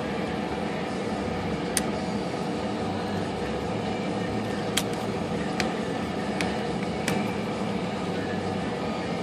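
A few single sharp metallic clicks of a tool on the stubborn nut of an IBM Selectric's latch assembly being worked loose, over a steady mechanical hum.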